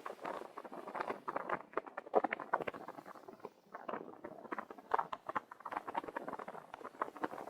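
Car tyres rolling over packed snow, making a continuous irregular crackling and crunching.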